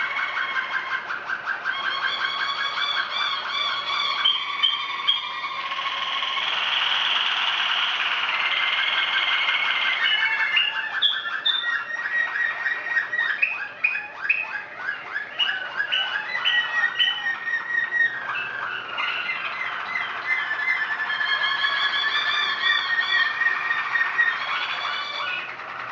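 Malinois Waterslager canaries singing a continuous song made of tours: rapid trills of fast repeated notes and quick rising whistled glides that switch to a new pattern every few seconds. A denser, more rushing tour comes from about six to ten seconds in.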